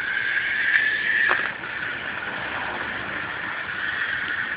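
Wind-up ladybug toy's clockwork motor whirring steadily as the toy runs about, with a brief dip in the whir about a second and a half in.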